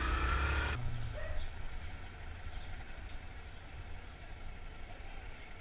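Motorcycle engine running under way amid street traffic, the sound changing abruptly a little under a second in to a quieter, steady low engine rumble.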